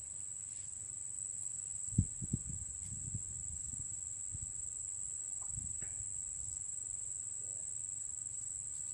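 Steady, high-pitched insect trill that does not let up. Over it come a few soft low thumps and rustles from handling in dry grass, the loudest about two seconds in.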